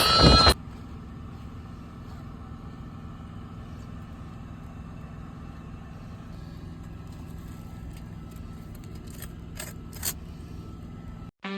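Truck engine running with a steady low hum, with a few light clicks about nine to ten seconds in. Music plays briefly at the start and comes back near the end.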